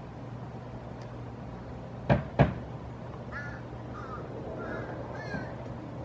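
Two sharp knocks about a third of a second apart, a couple of seconds in: a pileated woodpecker's bill striking a weathered wooden fence board. Faint short bird chirps follow.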